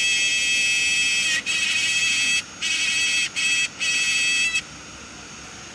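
High-pitched electronic buzzing whine from a DJI Air 2S drone's gimbal. It breaks off briefly a few times and stops about four and a half seconds in. It is an abnormal noise that the owner says starts whenever the propellers spin up, with no error codes and normal footage.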